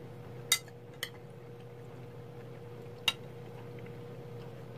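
A spoon clicking against a bowl while eating: three short clinks, the loudest about half a second and three seconds in, over a steady faint hum.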